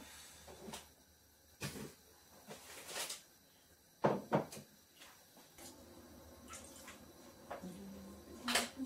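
Knocks and clatters of kitchen containers and utensils being handled and set down on a worktop, several separate hits with a close pair about four seconds in. No blender motor runs yet.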